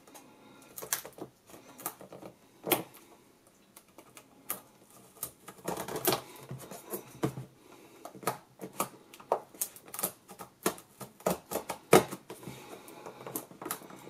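Irregular clicks and scratches of a pointed tool picking at a holographic seal sticker on a cardboard box, trying to lift it, the clicks coming thicker and faster from about halfway.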